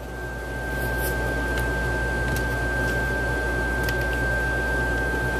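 A steady sine-wave tone of about 1.6 kHz from a signal generator, amplified by a TDA2030 amplifier board and played through a vintage Realistic two-way speaker, over a low hum. A few faint clicks come through it.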